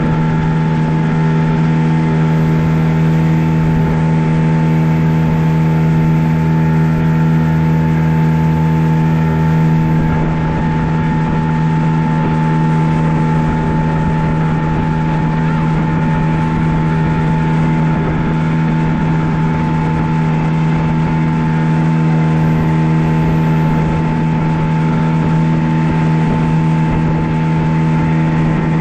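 Outboard motor of a small passenger boat running steadily at constant speed, a loud, even engine drone with no change in pitch.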